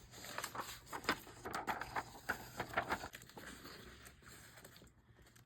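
Loose paper pages, including magazine pages, rustling and crackling as they are handled and leafed through: short irregular crackles that thin out over the last two seconds.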